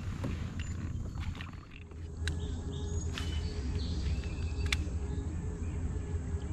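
A steady low rumble with a faint high whine, broken by three sharp clicks or knocks spread over a few seconds, with faint chirps in the background.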